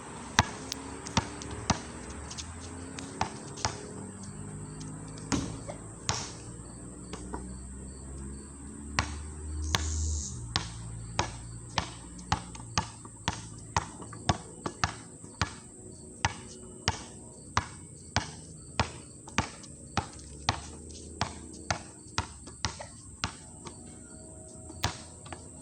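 Basketball bouncing on an outdoor court: a few scattered bounces, then steady dribbling at about two bounces a second through the second half, with music playing underneath.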